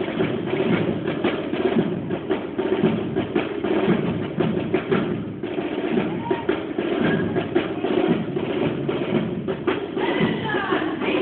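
Marching drums, bass drum and snares, beating a steady cadence for troops marching in. Near the end, cheers and whistles from the crowd begin over the drumming.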